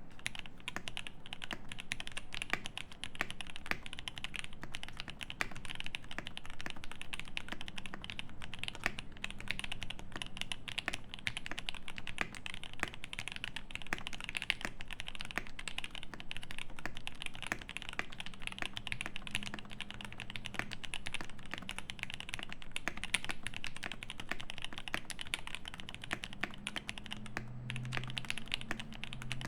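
Continuous fast typing on a Cyberboard mechanical keyboard with lubed C3 Fierce Girl switches in an aluminium plate and GMK keycaps, a dense unbroken stream of keystroke clacks.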